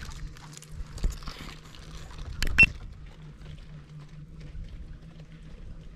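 Steady low hum of a boat's motor with faint water noise. About two and a half seconds in comes a short, sharp knock with a brief high ring.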